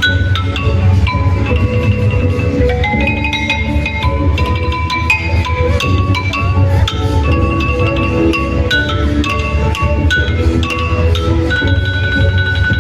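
Vietnamese lithophone (đàn đá) played: stone bars struck in a quick, continuous melody of short ringing notes, over a steady low bass underneath.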